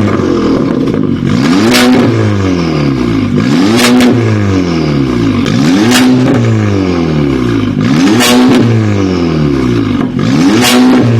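Audi A5 B9 engine revved repeatedly through an aftermarket RES exhaust. Each blip rises, holds briefly and drops back, about every two seconds. The sound is loud.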